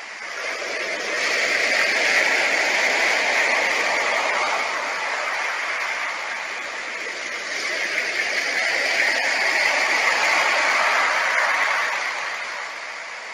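Rushing, churning water: a steady hiss that builds over the first couple of seconds, eases off around the middle and swells again.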